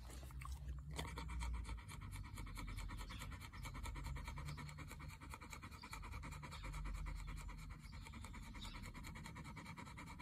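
Australian Shepherd panting fast and steadily, out of breath after hard play, with background music.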